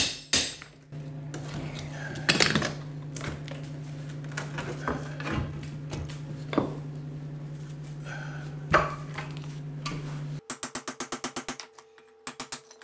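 Claw hammer striking a steel flat pry bar, with tile and thinset mortar cracking, scraping and clattering as a tiled shower curb is pried apart. A steady low hum runs underneath and stops about ten seconds in, followed by a quick run of light clicks.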